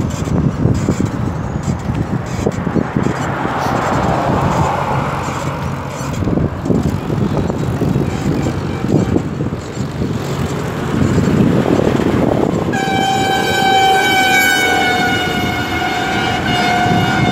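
Rumble of a moving vehicle with wind buffeting the microphone, then near the end a vehicle horn sounds one long blast, its pitch sagging slightly, lasting about four and a half seconds.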